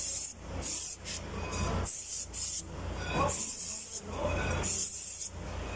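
Aerosol brake cleaner sprayed in repeated short hissing bursts onto a drum brake assembly to wash off brake dust.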